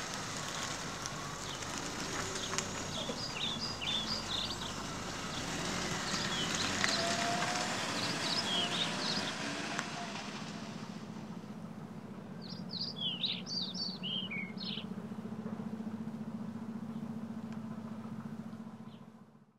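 A car pulling away and driving off, its engine and tyre noise fading over about ten seconds, while small birds chirp in short bursts. A steady low hum is left near the end.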